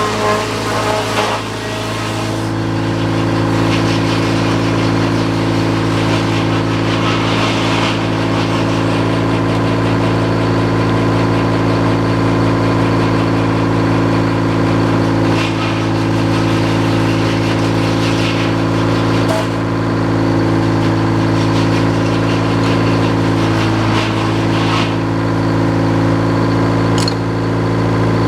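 Sawmill engine running steadily at one constant speed, with a few short knocks along the way.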